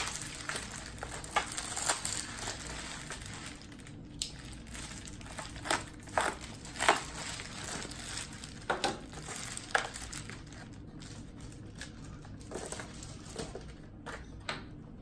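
Foil wrapping crinkling and rustling as it is handled, cut and pulled open, with a scattering of sharp crackles, the loudest in the middle of the stretch.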